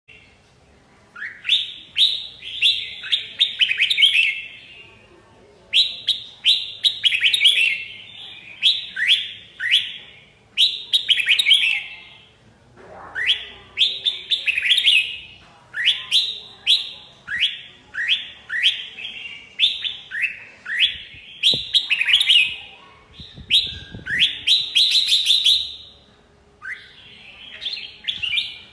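Red-whiskered bulbul singing: phrase after phrase of quick, rising chirped notes, each phrase a second or two long, with short pauses between.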